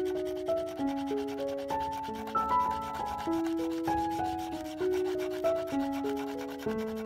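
A paint-marker tip scrubbing back and forth over paper and tape in a steady rubbing, under background music: a slow melody of held notes that changes in steps.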